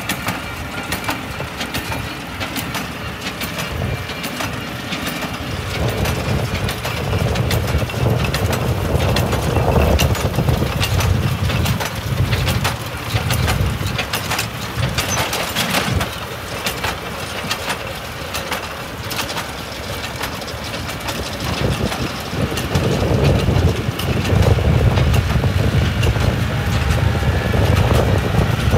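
Tractor-driven New Holland baler working vetch hay: a low engine drone that swells and fades every few seconds, with many sharp knocks and crunching from the baling mechanism.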